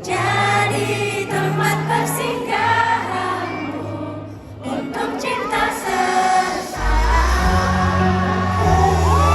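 Music with several voices singing over sustained bass notes; a heavier bass line comes in about seven seconds in.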